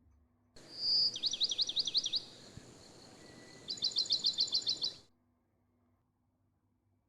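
A songbird singing over a light hiss. A short high whistle comes first, then a run of about six quick falling notes, a pause, and a fast trill of about ten high notes. The birdsong cuts in and out abruptly, about half a second in and again after about five seconds.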